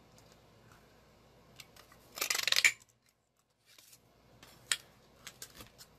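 Handheld paper-craft punch pressed through cardstock: one short crunching cut about two seconds in, followed by a sharp click and a few lighter clicks of the punch and paper being handled.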